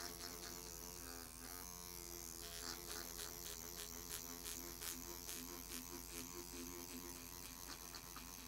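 Electric microneedling pen running with a faint, steady buzz, with light regular ticks as its needle cartridge is worked over the skin of the cheek.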